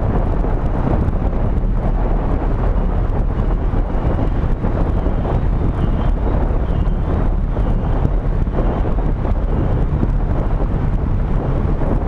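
Wind rushing over an action camera's microphone as it moves along a street, over a steady low rumble from the moving vehicle and road.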